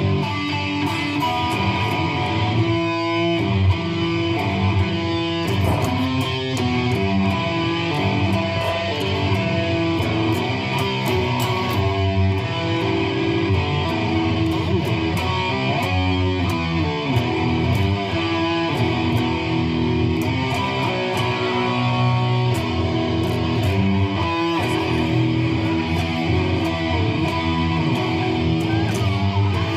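Electric guitar music, its chords changing every second or so, without a break.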